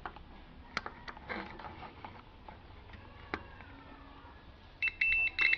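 Multimeter continuity beeper sounding in a few short, broken beeps near the end as the test probes bridge the STK power amplifier module's pins: the pins are shorted together. Before that, only a few faint ticks.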